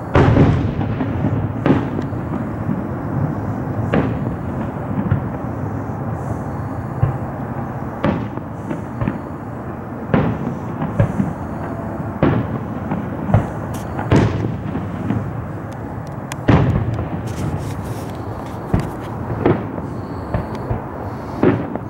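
Distant aerial fireworks show: a string of booms rolling and echoing, irregularly spaced about one to two seconds apart, the loudest near the start and about two-thirds of the way through.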